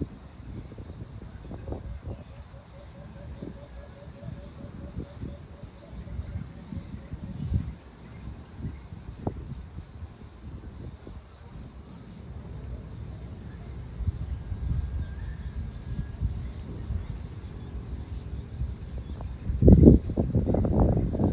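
A steady high-pitched insect drone, with wind buffeting the microphone in gusts, the strongest gust near the end.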